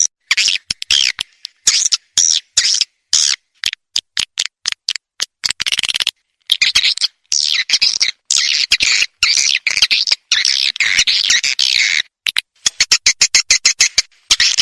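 Swiftlet lure-call recording, the 'suara panggil walet' played to draw swiftlets to nest houses: buzzy, twittering swiftlet chirps alternating with runs of sharp dry clicks. Near the end the clicks come faster, about six a second.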